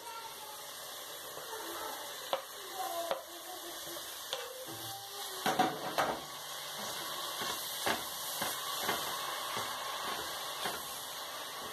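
Cavolo nero (Italian kale) leaves sizzling in a stainless steel pot while a wooden spoon stirs them, knocking and scraping against the pot several times, most sharply about halfway through.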